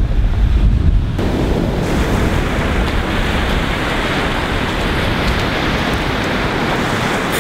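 Ocean surf washing in steadily. Wind buffets the microphone with a low rumble during the first second or so.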